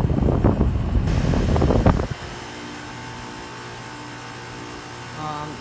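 Goodman heat pump outdoor unit running in cooling mode, with loud rushing air buffeting the microphone for about two seconds. After that comes the steady low hum of its Copeland scroll compressor and condenser fan.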